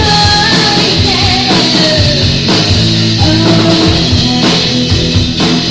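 Live rock band playing loud: a drum kit hitting steadily under sustained notes that bend in pitch.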